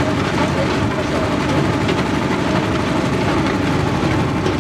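Bucket-chain dredger running: its large diesel engine drones steadily, with the chain and buckets rattling as they dig and carry clay.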